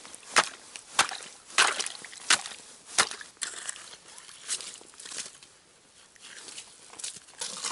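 Steel ice chisel striking and chipping the ice of a fishing hole: about five sharp blows roughly every two-thirds of a second over the first three seconds, then softer, scattered knocks and scraping.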